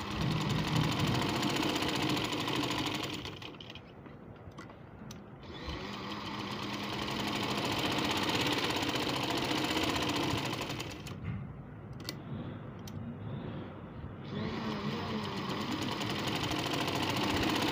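Sewing machine stitching in three spells, stopping briefly about three seconds in and again about eleven seconds in.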